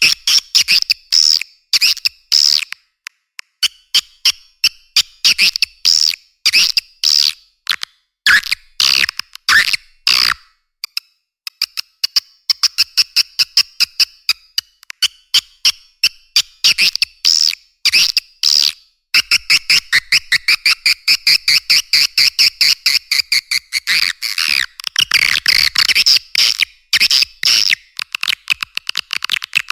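Swiftlet lure call: rapid trains of sharp clicks mixed with high chittering twitters, the calls and chick-response sounds played in swiftlet houses to draw the birds in to nest. The clicks grow faster and denser about two-thirds of the way through.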